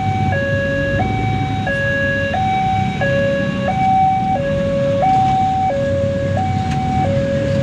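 Railway level-crossing warning alarm sounding its two-tone electronic signal, alternating high and low tones about every two-thirds of a second, over the low rumble of a coal freight train rolling past.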